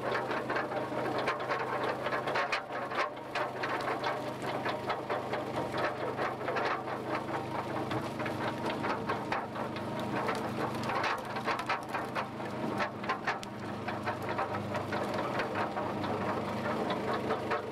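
A boat engine running steadily under a dense, continuous patter of small wet slaps and splashes as a gillnet full of herring is hauled over a skiff's rail.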